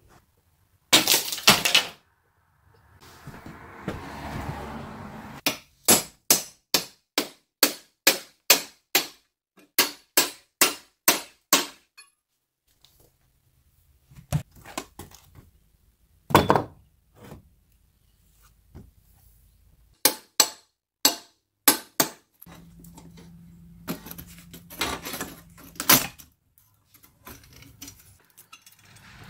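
Hammer striking a flat steel pry bar to drive it in under an old door jamb and threshold and pry the wood loose: a run of a dozen or so sharp metal strikes at about two a second, with more scattered blows later and a stretch of scraping before the run.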